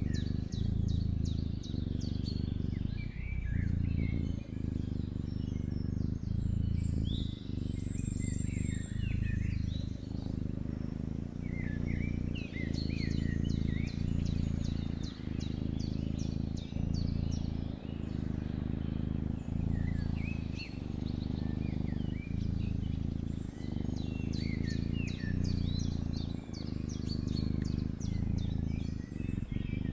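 A napping cat's low purr, broken by a short dip about every one and a half seconds as it breathes in and out, with small birds chirping in quick high runs in the background.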